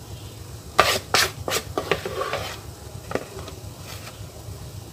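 A spatula knocking and scraping against a bowl as cake batter is scraped into a baking pan: four quick knocks within about a second, a short scrape, then one more knock about three seconds in.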